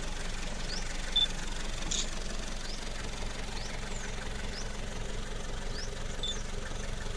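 A safari vehicle's engine idling with a steady low hum. Over it, a bird gives short rising high chirps about once or twice a second, with a brief high whistle about a second in and another near the end.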